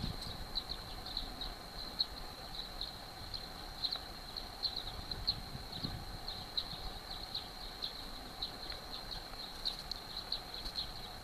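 Outdoor ambience: continuous high-pitched chirping held at one pitch, with many short chirps a second, over a faint steady hum.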